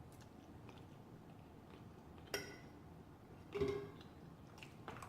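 Quiet mouth sounds of someone eating: faint chewing, with one sharp click a little over two seconds in and a short, louder sound at about three and a half seconds.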